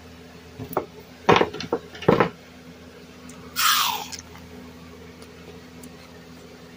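Frozen freezer pops in plastic sleeves being handled and set down on a wooden table: a few sharp knocks in the first two and a half seconds, then a brief rustling swish about three and a half seconds in.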